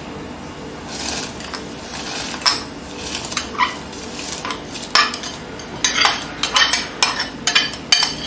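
Clinks and taps against an aluminium pot as washed rice is tipped from a bowl into boiling water, over a low steady hiss; the taps come faster in the second half, about two or three a second.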